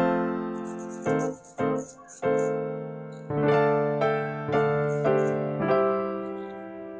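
Background music: a keyboard with a piano-like sound plays chords, each struck and left to fade, a new one about every second.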